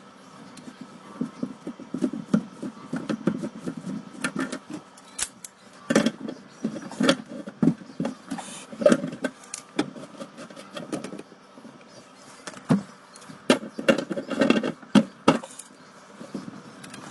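Tongue-and-groove pliers and hands working at the stuck lock nut of a kitchen sink drain strainer: irregular metal clicks, knocks and scrapes of the jaws on the nut, with rustling and bumping against the plastic drain pipes. The nut will not come loose.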